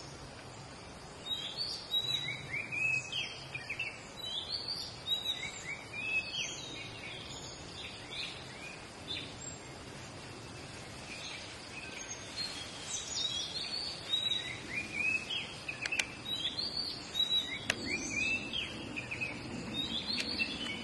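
Wild birds calling over and over in short, repeated whistled phrases above a steady background hiss, with a couple of sharp clicks near the end.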